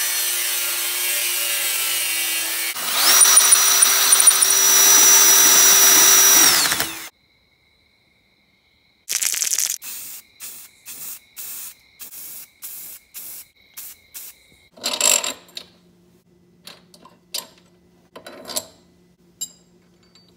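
Power tool cutting a steel plate: it runs steadily, gets louder with a high whine about three seconds in, and stops suddenly a few seconds later. After a short gap come a run of sharp clicks, about two a second, and then scattered knocks of metal parts being handled.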